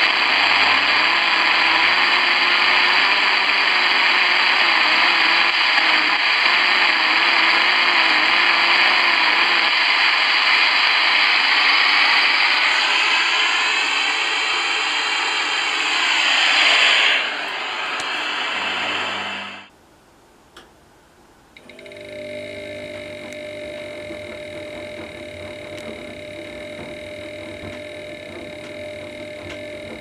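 Shortwave radio (Tecsun PL-310ET) tuned to 11571 kHz, giving a loud steady hiss and buzz of radio interference picked up from the Zanussi washing machine's electrical emissions, with wavering whines that shift around the middle. It cuts off about two-thirds of the way through, and after a short quiet gap a quieter steady electrical buzz with several held tones comes in, the audio output of a Gigahertz ME3851A field meter.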